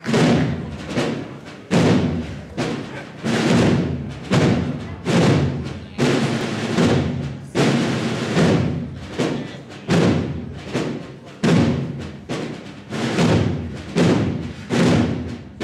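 Brass band of cornets and trumpets playing a processional march. Strong accented chords come under a second apart, each fading before the next.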